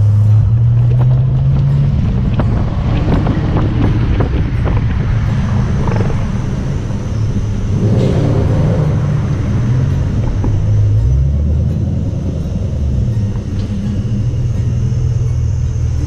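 Music with a deep bass line that moves in steps, mixed with the sound of car engines running.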